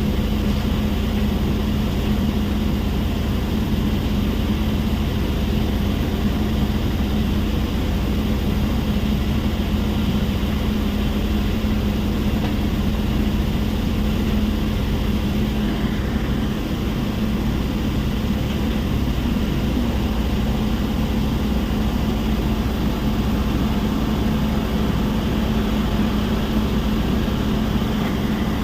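Stone crushing plant machinery running with a steady, unbroken hum and mechanical noise.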